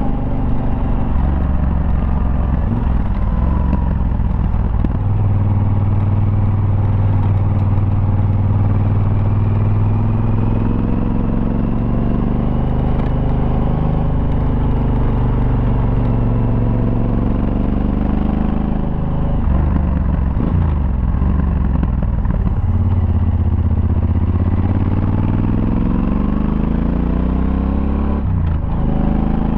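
Yamaha Super Ténéré's parallel-twin engine, heard onboard, running under changing throttle. Its revs rise and fall through the bends, with a long climb in pitch late on and then a sudden drop near the end. Its rough-edged note is one the rider calls an "agricultural" engine sound.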